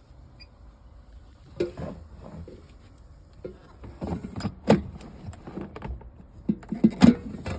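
Irregular knocks and clatter of cookware and utensils being handled while bacon is put in to cook. The sharpest knock comes about seven seconds in.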